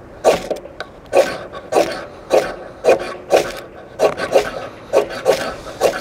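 Exotac fireROD XL ferrocerium rod struck over and over with the Gerber Center Drive Plus multi-tool: about eleven quick rasping scrapes, roughly two a second. It makes a passable striker, not a great one.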